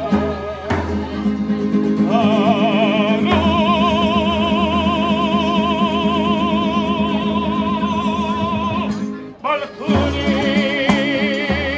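Live Sicilian folk music: a man sings over accordion and acoustic guitar while he beats a jingled frame drum (tamburello). He holds one long note with wide vibrato for several seconds, breaks off briefly near the end, then sings on.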